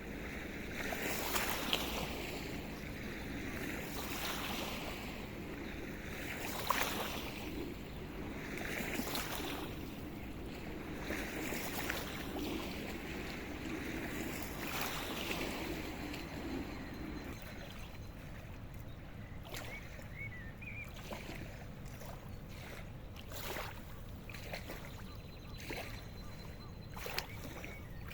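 Riverside ambience on the Rhine: water washing against the bank in repeated swells under a passing boat's low engine drone, which fades about two-thirds of the way through.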